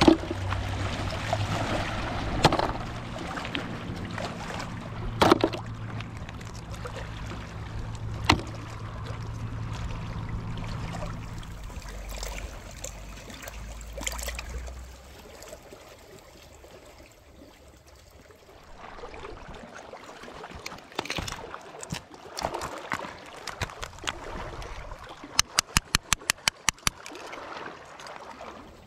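Water lapping and trickling over oyster-covered rocks. A low steady hum stops about halfway through, and a few scattered sharp clicks of shell sound throughout. Near the end comes a quick run of about a dozen sharp taps, a hammer chipping at oyster shells on the rock.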